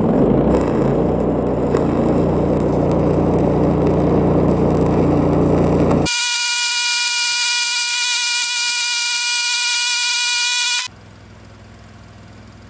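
Heavy diesel machinery running hard for about six seconds, then an abrupt cut to a steady high-pitched tone held for about five seconds, then a quieter low engine hum near the end.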